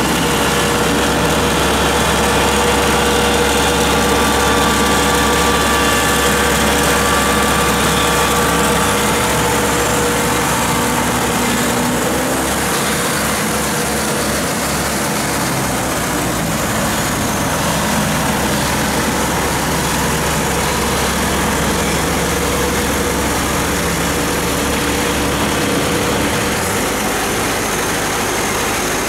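Kubota DC-70 combine harvester's diesel engine running steadily as the machine crawls on its rubber tracks over steel loading ramps. A higher whine in the engine sound fades out after about ten seconds.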